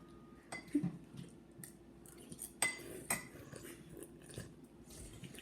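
Spoon clinking against a soup bowl a few times, one clink about two and a half seconds in ringing briefly.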